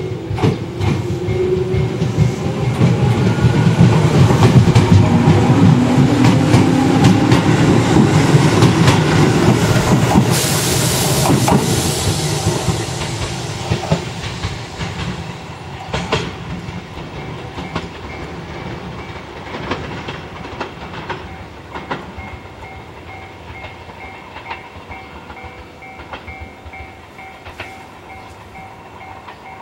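Tobu 6050 series two-car electric train pulling out and accelerating past, its motors rising in pitch and its wheels clacking over the rail joints. It is loudest as it passes, with a brief hiss, then fades as it draws away.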